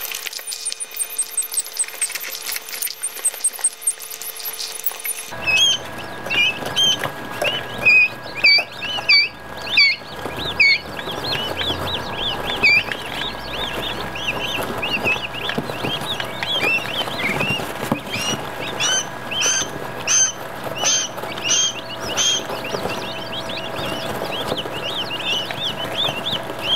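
Quail chicks peeping: many short, loud chirps that rise and fall in pitch, coming thick and fast, over a steady hum that sets in suddenly about five seconds in. Before that there is only a fainter, very high, rapid twittering.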